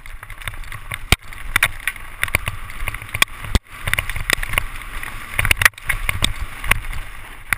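Mountain bike clattering down a loose rocky trail: tyres hitting stones and the bike rattling with many sharp knocks over a steady low rumble.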